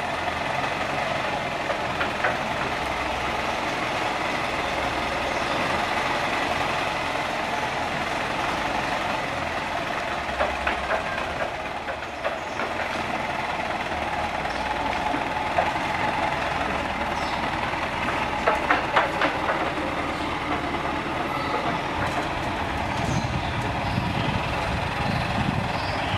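Diesel engine of a light cargo truck running as the truck moves slowly, a steady clattering, with a few short knocks about ten and nineteen seconds in.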